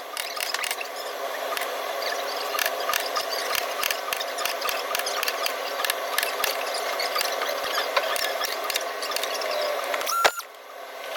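Dent puller being worked on the quarter panel's sheet metal: irregular sharp metallic clicks over a steady hiss. About ten seconds in there is a louder click with a brief rising tone, after which it goes quieter for a moment.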